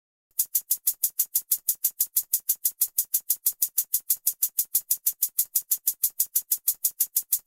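A rapid, even train of sharp, high-pitched clicks, about six a second, all equally loud, starting about half a second in.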